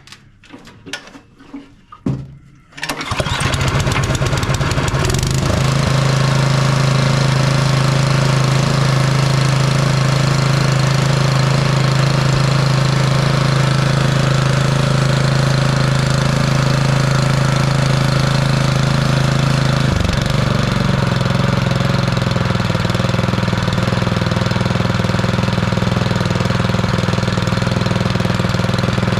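MTD Powermore 179cc single-cylinder snowblower engine on choke, catching about two and a half seconds in and then running steadily, with a brief change in its note about twenty seconds in. It starts and runs cleanly, without popping, once a stuck intake valve has been freed.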